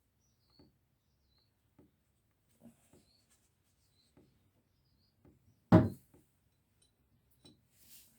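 Small metal parts and spanners being handled during a motorcycle clutch slave cylinder strip-down: faint scattered clicks and one sharp clunk about six seconds in. Faint bird chirps.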